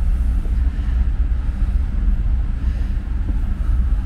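Steady low rumble and hum of a cruise ship underway, heard inside a cabin.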